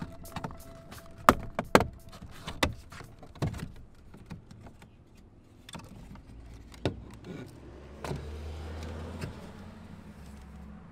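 Plastic retaining clips snapping as the power window switch panel is pried out of a 2018 Nissan Titan's door armrest: a run of sharp snaps and clicks over the first few seconds, then a few softer knocks and plastic handling. A low hum for a couple of seconds near the end.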